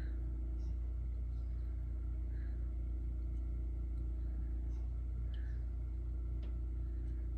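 Steady low background hum of a small room, with a few faint, short high chirps every couple of seconds and two light clicks near the end.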